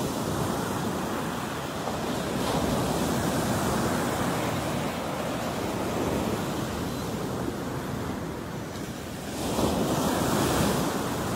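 Ocean surf breaking and washing up a sandy beach: a continuous rushing that swells and ebbs with each wave. It is loudest as a wave breaks close to shore near the end.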